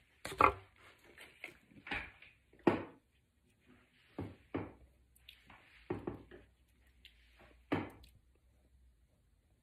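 Painting gear being handled: an irregular string of seven or eight sharp knocks and clacks, the loudest about half a second in and just before three seconds in.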